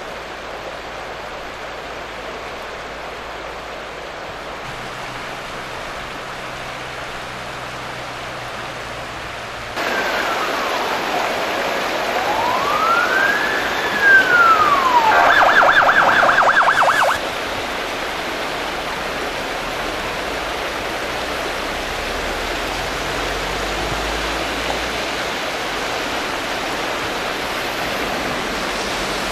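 Steady rush of river water over stones. About ten seconds in, an emergency vehicle siren sounds over it: a wail that falls, rises and falls again, then a fast yelp for about two seconds that cuts off suddenly.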